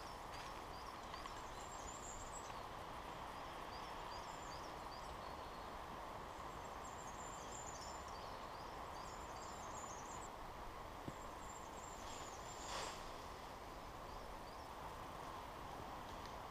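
Woodland ambience: a steady background rush with a small bird calling in short, high, falling chirps, over and over, for most of the time. A soft rustle about three-quarters of the way through.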